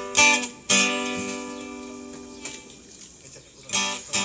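Single chords strummed on a guitar, each left to ring and fade. There is a quick pair at the start, then one chord that rings out long, and another pair near the end.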